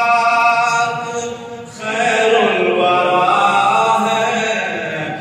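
A man singing a naat, an Urdu devotional poem in praise of the Prophet, unaccompanied into a microphone and amplified over loudspeakers. It comes as two long, drawn-out melodic phrases with a brief breath between them about a second and a half in.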